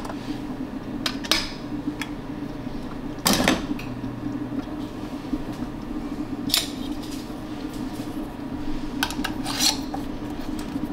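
Metal canning lids and bands clinking against glass jars as the jars are closed up: scattered sharp clinks, the loudest about three and a half seconds in, over a steady low hum.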